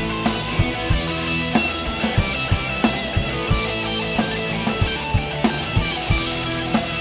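Live rock band playing an instrumental passage without vocals: guitar and drum kit over a steady beat, with drum hits about three times a second.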